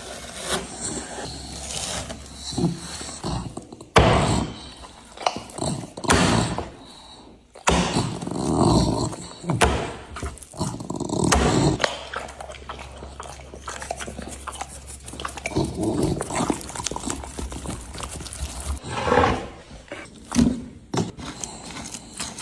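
Dogs growling and snarling in irregular rough bursts, mixed with sharp clicks and knocks.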